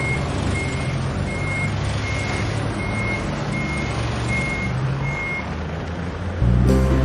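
A construction vehicle's reversing alarm beeping at an even pace, about eight high single-tone beeps, over a low engine rumble and a steady hiss; the beeping stops and music comes in near the end.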